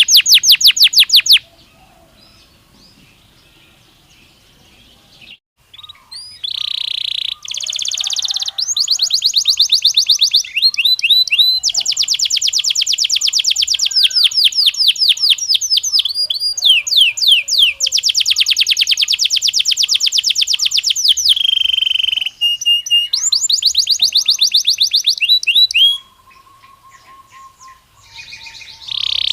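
Belgian canary singing in long, fast trills of rapidly repeated high notes, with a pause of a few seconds near the start and another near the end.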